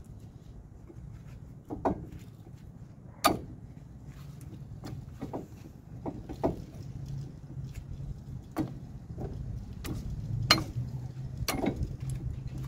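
Irregular metal clicks and knocks from a brake caliper being worked by hand on a truck's front wheel hub, about a dozen in all, two of them sharper and louder, over a low steady hum.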